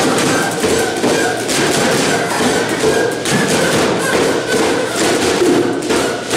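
A group of homemade recycled instruments played at once: drums made from plastic containers with wax-paper heads beaten in an irregular clatter of thumps, over the continuous hiss of bean-filled paper-towel-roll rain shakers.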